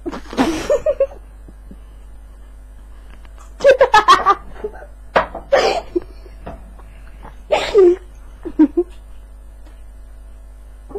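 About five separate bursts of laughter.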